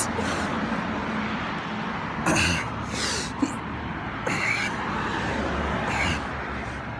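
A man breathing hard while doing push-ups, with sharp exhalations roughly every second or so over a steady low rumble.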